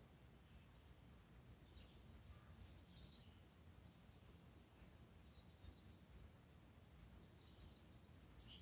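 Near silence: room tone with scattered faint, short, high-pitched chirps.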